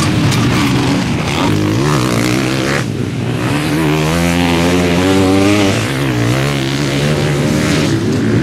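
Several motocross bikes' engines revving hard as they race over the dirt track. About three seconds in, a single bike passes close, its engine note rising and falling as the rider works the throttle.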